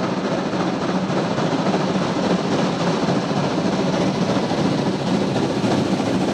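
DR class 52 steam locomotive 52.1360-8 working hard as it approaches, its loud exhaust beats coming so fast they run together into a steady chuffing that grows slowly louder.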